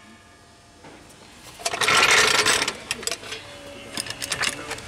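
Steel floor jack being positioned and pumped under a car: a loud rasping scrape about a second and a half in, then a run of quick metallic clicks and rattles as the jack works.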